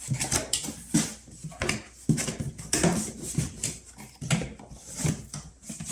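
A cardboard box being opened and its contents handled: irregular rustles, scrapes and light knocks of cardboard and packaging.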